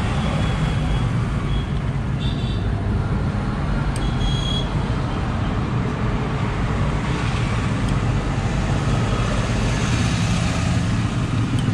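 Steady background rumble of passing road traffic and engines, with a few short high-pitched tones and a light click about four seconds in.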